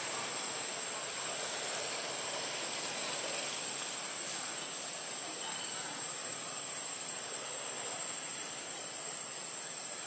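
Steady high-pitched hiss.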